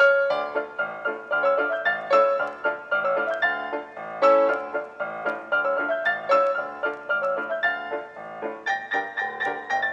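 Background piano music, notes struck in quick succession.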